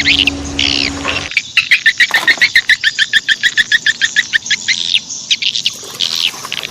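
Birds chirping, with a fast, even trill of repeated notes, about eight a second, from about a second and a half in until near five seconds. A low steady hum underneath cuts off suddenly about a second in.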